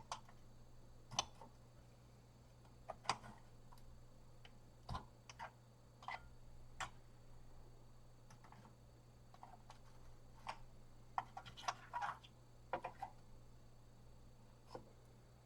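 Faint, irregular metallic clicks and taps of a chip puller working at a socketed 6502 CPU on a disk drive's circuit board, the chip not yet coming free. The clicks come singly every second or two, with a quick run of them about two-thirds of the way through.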